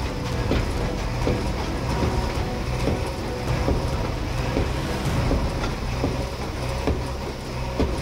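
JCB backhoe loader's diesel engine running as its arm breaks down a brick house wall, with repeated knocks and clatter of masonry.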